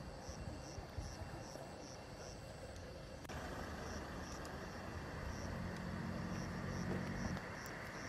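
A motor vehicle's engine running, growing louder about three seconds in, with a faint insect chirping about three times a second.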